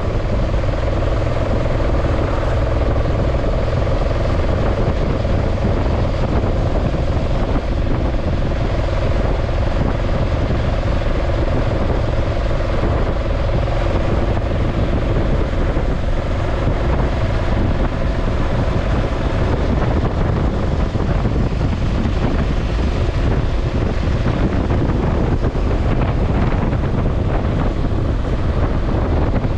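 A steady motor drone with a few held tones over a low rumble, mixed with wind noise, unchanging throughout.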